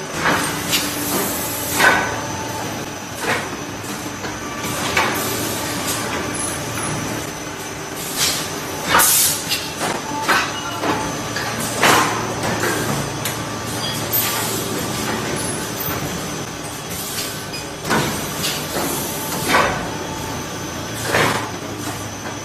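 Automatic blow moulding machine for plastic ball-pit balls running: a steady mechanical din broken irregularly, every second or two, by short sharp hisses of air and clunks.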